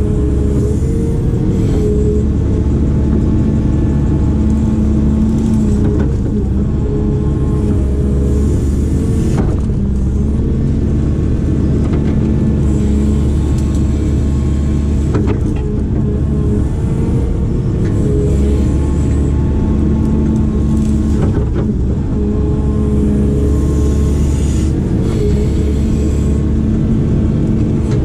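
Diesel engine of a heavy digging machine running continuously, its low drone growing and easing every few seconds as the load changes, with a few short knocks.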